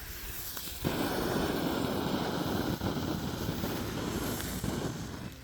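Smoke bomb spewing smoke with a loud, rough rushing hiss that starts abruptly about a second in and cuts off near the end.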